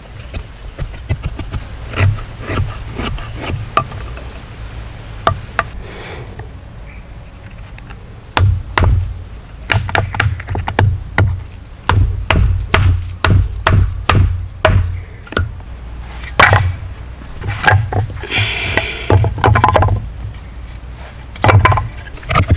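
Wood being struck repeatedly with a hand tool: sharp, uneven chopping knocks, sparse at first and coming in quick runs from about eight seconds in.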